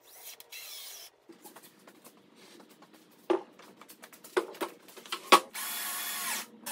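A thick MDF panel is handled and set down on a workbench with a few sharp knocks. Near the end a cordless drill-driver whirs for about a second, backing screws out of the MDF.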